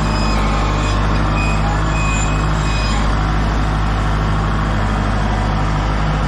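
Engine of a heavy truck or construction machine running steadily at close range, with a few short high tones over it.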